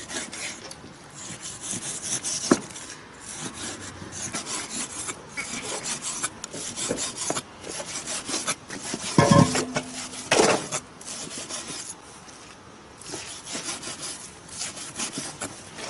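Kitchen knife slicing raw beef on a chopping board: a steady run of short cutting strokes with light knocks of the blade on the board, and a brief louder patch about nine seconds in.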